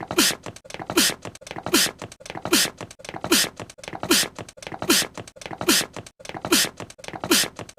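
A young male anime character's (Shoto Todoroki's) sneeze clip played on a loop: each sneeze is a short falling vocal catch followed by a sharp hissing 'choo', repeating about every 0.8 seconds, about ten times in a row.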